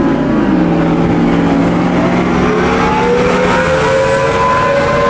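A motor vehicle's engine running while driving, its pitch dropping about half a second in and then holding steady. From about two seconds in, a higher tone slowly rises in pitch and then holds.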